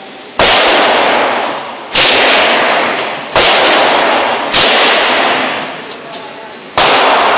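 Five single gunshots fired one at a time, about one to two seconds apart, each followed by a long echoing decay in the indoor range.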